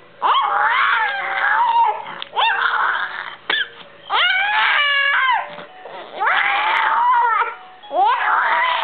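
A four-month-old baby girl making a run of long, high-pitched vocal sounds that come close to crying. There are about five calls, each rising and falling in pitch, with short breaths between them.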